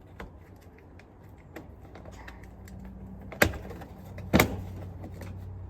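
Plastic trim clips being pried loose on a pickup's door trim: a few light ticks, then two sharp snaps about a second apart. A low steady hum runs underneath from about two seconds in.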